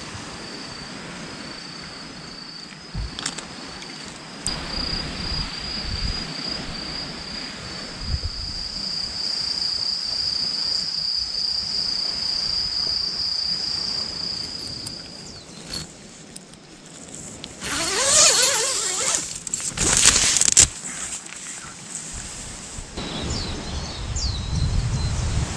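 An insect's steady, high-pitched, slightly pulsing trill that stops about 15 seconds in. Two brief, louder noises follow around 18 and 20 seconds, then a low rumble near the end.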